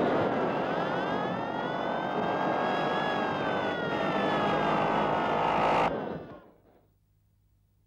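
Racing-car engine noise with a high whine that rises and then slowly falls, cut off abruptly about six seconds in, then near silence.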